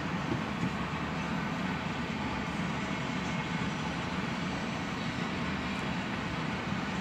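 Cars of a manifest freight train rolling past: a steady, mostly low-pitched noise of steel wheels on the rails, without distinct clicks.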